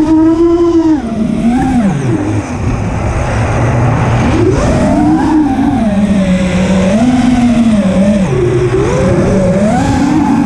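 Racing quadcopter's motors whining as it flies, heard from the camera on board, the pitch sliding up and down with the throttle and dropping low about two seconds in and again near eight seconds.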